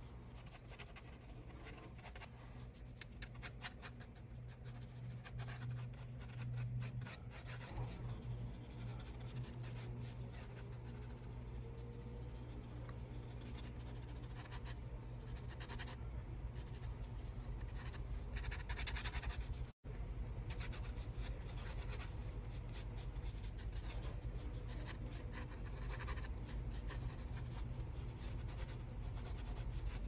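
Graphite pencil scratching across watercolor paper in short, irregular sketching strokes, over a steady low hum. The sound drops out for an instant about two-thirds of the way through.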